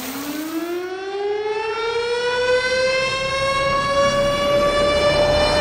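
Siren winding up: one steady tone glides upward in pitch over about four seconds and levels off near the end, growing louder as it climbs.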